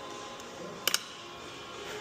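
Background music, with a sharp double click about a second in.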